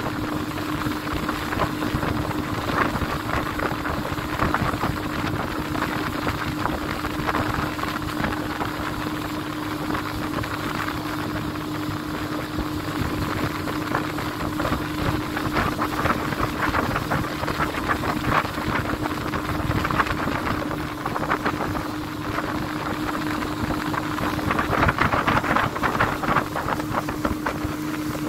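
Motorboat engine running with a steady hum, with wind rushing and buffeting the microphone in gusts.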